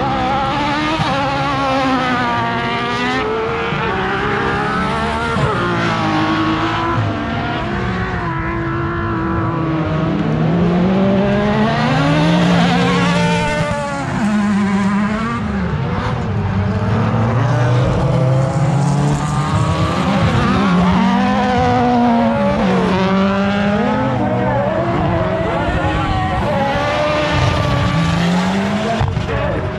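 Several autocross race cars running together, their engines revving up and falling back over and over through gear changes and corners, the engine notes overlapping.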